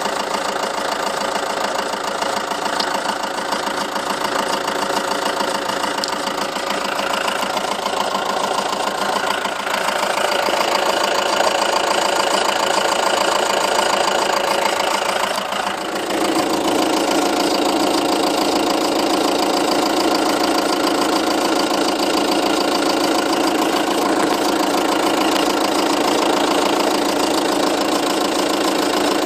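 Seat Leon 2.0 TDI four-cylinder diesel (BKD) idling steadily, with a ticking and rattle the owner hears mainly at the nearside front wheel arch, in a pattern of "tick, tick tick tick". The ticking appeared after a cam belt and water pump change. The engine's tone shifts about ten seconds in and again around sixteen seconds.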